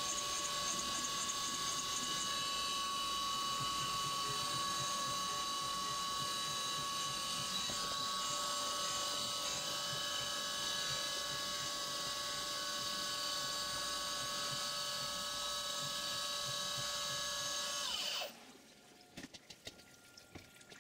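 CNC milling machine spindle running a 1/8 inch ball end mill through a 3D profiling cut under flood coolant, a steady high whine made of several tones, played back at five times speed. About eighteen seconds in, the whine falls in pitch as the spindle winds down and stops, leaving a few faint clicks and drips.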